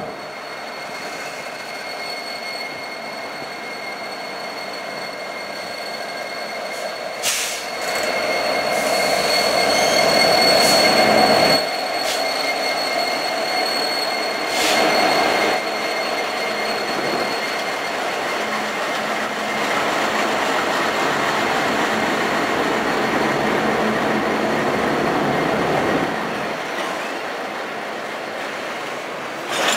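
A loaded crude-oil unit train passing close by: diesel locomotives and then a line of tank cars rolling over the rails. A thin, steady, high wheel squeal runs through the first ten seconds or so, and there are a few sharp knocks. It is loudest about ten seconds in.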